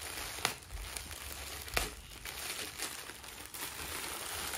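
Plastic courier mailer bag crinkling as it is handled and its contents are pulled out, with two sharp crackles about half a second and nearly two seconds in.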